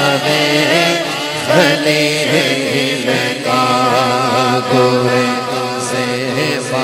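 A male naat reciter singing a long wordless melodic passage, his voice wavering and sliding in pitch, over a steady low drone.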